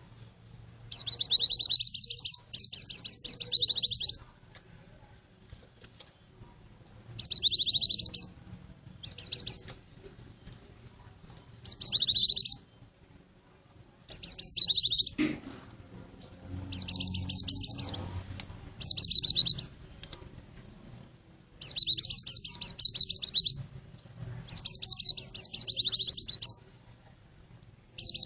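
White-eye (pleci) singing: high, rapid chattering phrases of one to two seconds each, repeated about a dozen times with short pauses between.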